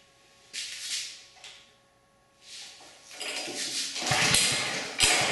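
Honda GX200 engine on a pressure washer being pull-started: rope pulls with the recoil starter, and in the last second or so the engine fires and sputters briefly, almost starting but not catching.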